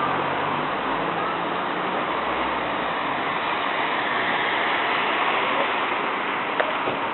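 A large flock of birds, its many calls blending into a steady, rushing noise with faint chirps above it.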